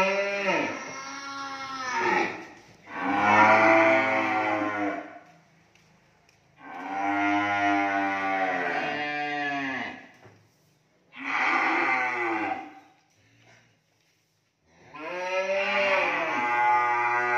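Cattle mooing: five long, loud calls, each lasting about one and a half to three and a half seconds, with short quiet gaps between them.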